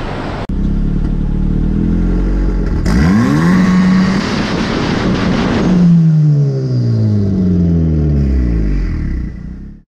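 Turbocharged Honda K20A3 engine in a K-swapped pickup revved against launch control: it runs steadily, the revs climb quickly about three seconds in and are held at the launch-control limit with a harsh rasp for about three seconds, then fall away as the throttle is released.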